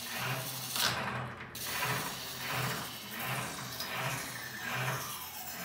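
Hand-cranked bench grinder turning, its gears whirring in an even rise and fall about once every three-quarters of a second with each turn of the crank, while a mini-machete blade is sharpened on the wheel. One louder burst comes about a second in.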